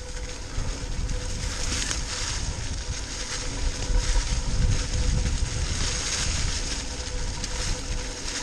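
Mountain bike rolling fast along a dirt trail covered in dry fallen leaves: tyre and ride noise with the bike rattling over the ground, and wind rumbling on the microphone.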